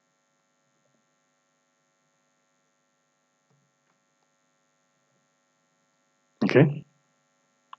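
Near silence with a faint, steady electrical hum from the recording setup; a single word is spoken near the end.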